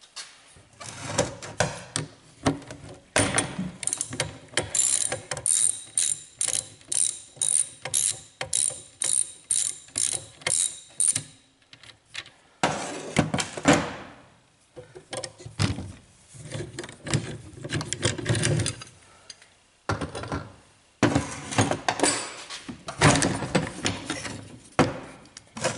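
Ratchet wrench clicking in a steady run of strokes, about two a second, as it loosens the 12 mm nut on a wiper motor's crank arm. Shorter, irregular bouts of clicking and metal handling follow later on.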